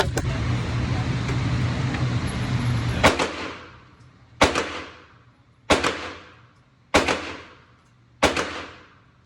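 Five shots from an H&K SL8 semi-automatic rifle in .223 Remington, fired one at a time about a second and a quarter apart, each followed by a short fading echo. A steady low rumble runs for the first three seconds and stops at the first shot.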